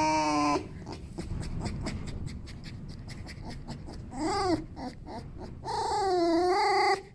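Fox squeaking with whining calls of excitement, the sound of a happy fox. There is a held call at the start, a short rising-and-falling squeal about four seconds in, and a long wavering whine near the end, with a quick run of clicks in between.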